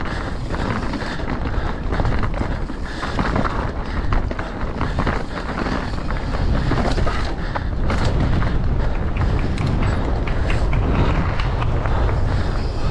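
Mountain bike riding fast down a dirt trail: steady wind rush over the microphone and tyre rumble, with frequent rattling clicks and knocks from the bike over rough ground.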